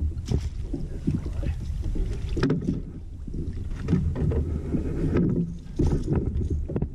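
Knocks, handling noise and water noise at the side of a fishing kayak as a largemouth bass is landed with a net, over a low, uneven rumble. Several sharp knocks stand out.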